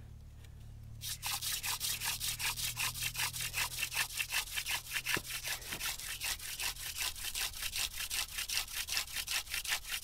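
Wooden hand-drill spindle spun back and forth between the palms in its hearth socket, a fast rhythmic rubbing and grinding of wood on wood at about six strokes a second, starting about a second in. These are the first warming-up strokes of a friction fire.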